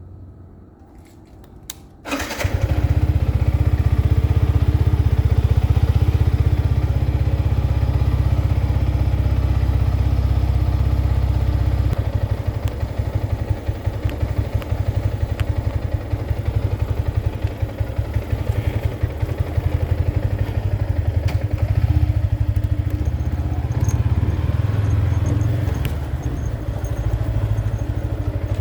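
Yamaha MT-15's single-cylinder 155 cc engine starting about two seconds in, after a few faint clicks, then running steadily with a low rumble.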